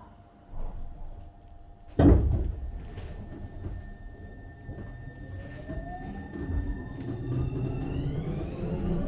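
A sharp thump about two seconds in. Then the Hitachi IGBT-VVVF inverter of a Tobu 30000 series train starts to whine as the train pulls away: several tones rise steadily in pitch over the rumble of the car.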